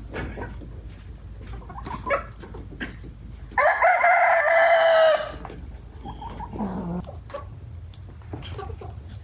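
A rooster crows once, loud, about three and a half seconds in, for about a second and a half, ending on a held note. Fainter short bird calls are heard before and after it.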